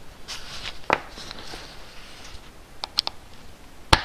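Small metal clicks and light handling noise as the parts of a hydraulic lifter element are fitted back together by hand. There is a sharp click about a second in, a few quick small clicks near three seconds, and another sharp click near the end.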